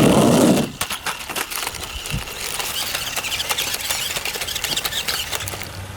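Toy RC stunt car driving, its small electric motors whirring and its wheels and plastic body rattling with many small clicks. A loud buzzing in the first moment stops abruptly under a second in.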